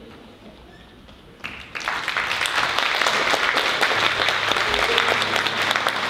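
Theatre audience applauding. After a brief hush, many hands break out clapping about a second and a half in and settle into dense, steady applause.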